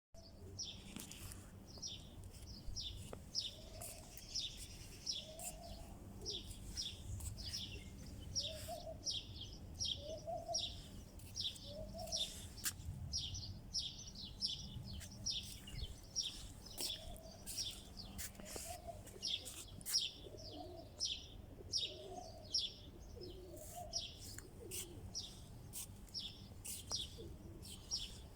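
Small birds chirping in a steady series of short high notes, about two a second. Low, arched cooing notes come in two runs of several calls each.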